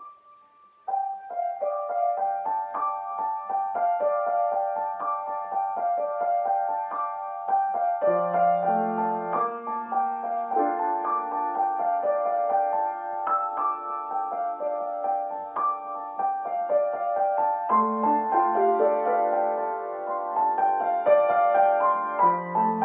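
Grand piano played solo as a slow improvisation: the melody starts about a second in, and low bass notes join in about eight seconds in.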